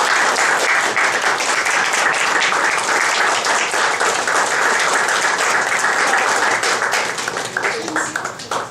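Audience applauding, a dense steady clapping that thins out and stops near the end.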